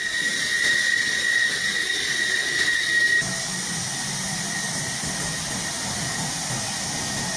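QF-16 (converted F-16) fighter's jet engine running at ground idle: a steady high whine over a broad hiss. About three seconds in the whine fades and a lower rumble comes up under the hiss.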